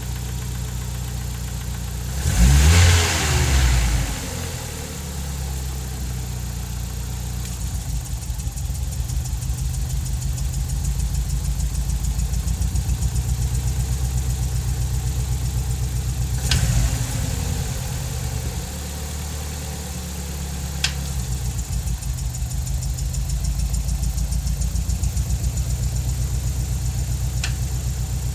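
Nissan 200SX engine idling steadily, revved once about two seconds in and blipped again more lightly past the middle, with a couple of sharp clicks later on.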